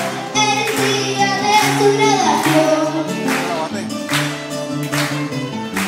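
A girl singing into a microphone with a small live band: strummed acoustic guitars over a bass line and a steady beat.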